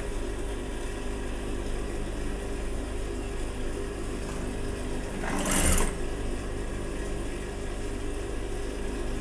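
Industrial lockstitch sewing machine humming steadily while it waits, with a short burst of stitching a little past halfway.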